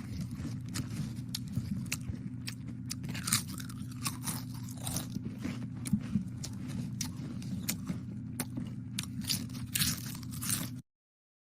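Someone munching potato chips close to the microphone: a quick, uneven run of sharp, crisp crunches over a low steady hum, cutting off suddenly near the end.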